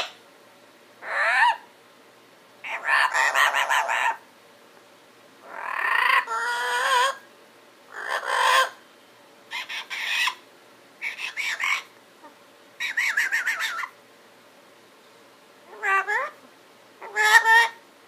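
Yellow-headed amazon parrot sleep-talking: about nine short bouts of mumbled, speech-like chatter with sliding pitch, separated by brief pauses.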